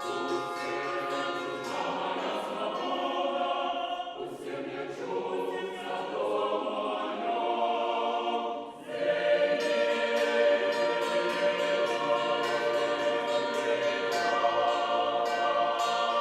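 Academic choir singing a sustained chordal passage; the sound breaks off briefly about nine seconds in, then the voices come back in louder.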